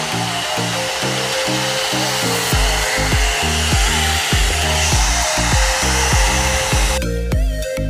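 Electronic background music with a steady beat, whose bass comes in about two and a half seconds in. Under it is the steady whooshing hiss of a hot air brush (hair dryer brush) running, which cuts off about seven seconds in.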